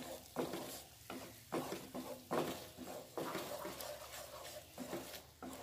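Wooden spatula stirring and scraping thick onion-tomato masala around a nonstick frying pan: a string of uneven soft scrapes, each under a second apart.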